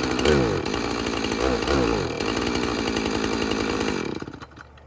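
Husqvarna 450 Rancher two-stroke chainsaw running: it is revved up and down a few times, then runs steadily. About four seconds in it is switched off and the engine dies away.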